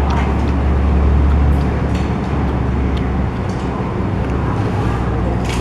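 Steady low rumble of road traffic with an engine hum, with a few light clicks scattered through it.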